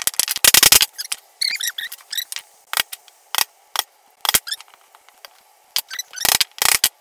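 Small hammer tapping 27 mm nails into a wooden board to start them: a string of sharp, separate strikes, several about half a second apart, with clicks from nails being handled near the start, a brief squeak about a second and a half in, and quicker knocks near the end.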